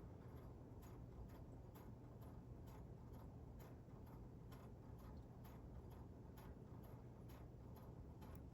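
Near silence: room tone with faint, even ticking about twice a second.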